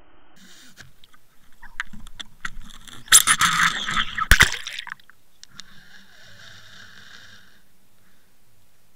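Water rushing and sloshing against an underwater camera's housing as it is towed through the water. It starts with scattered clicks and knocks, builds to a loud churning rush with a sharp knock for a couple of seconds in the middle, and is followed by a steady whine for about two seconds.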